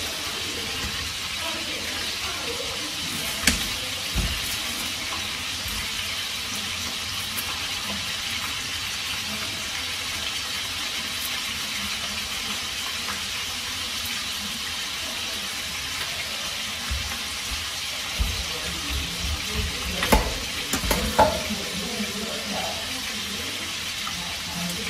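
Steady sizzling hiss of food frying in oil, with a few light clicks and knocks as a knife cuts bitter melon.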